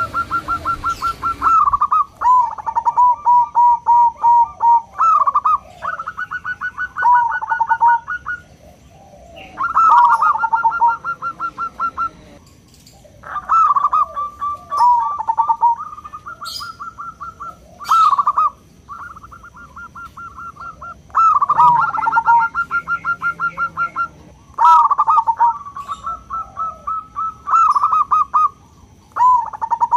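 Zebra dove (perkutut) song: phrase after phrase of rapid, rolling coo notes, each phrase lasting one to a few seconds with short pauses between.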